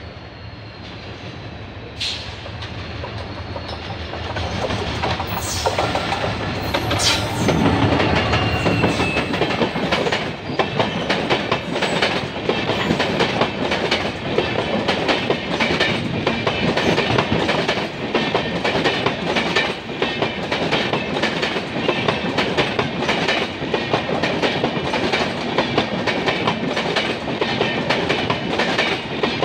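WDP4D diesel locomotive approaching and passing at speed, growing louder until its engine is loudest about seven to nine seconds in. A long rake of LHB passenger coaches follows, rushing by with a fast, rhythmic clickety-clack of the wheels on the rails.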